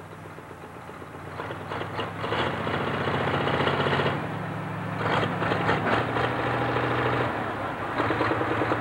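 Super stock pulling tractor's alcohol-burning engine running at the line. It is revved in surges, louder at about one and a half to four seconds in and again at about five to seven seconds in.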